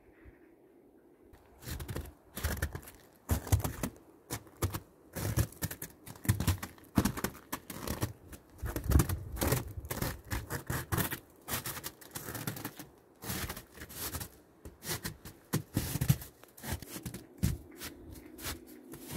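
Bare feet walking on thin snow over a wooden deck, each step a short crunch in quick, irregular succession, starting about a second and a half in.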